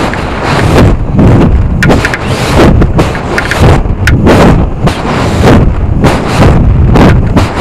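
Air rushing and buffeting over the microphone of the onboard Mobius action camera in its shroud on a high-power rocket in flight. The loud wind noise surges and eases in gusts about every half second to a second.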